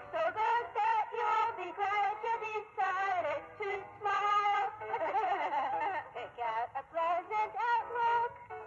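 Singing plush toys' sound chip playing high, synthetic-sounding cartoon voices giggling and chattering in quick, short phrases.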